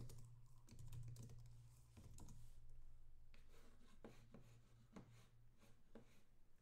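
Faint typing on a computer keyboard: irregular soft key clicks over a low steady hum.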